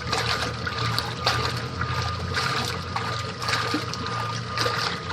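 Washing machine agitating a load of rugs in water: a steady motor hum and whine under continuous sloshing and splashing.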